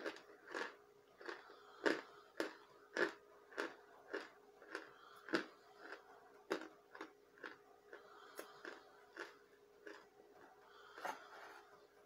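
A person chewing chunks of pressed cornstarch, with crisp, regular crunches a little under two a second.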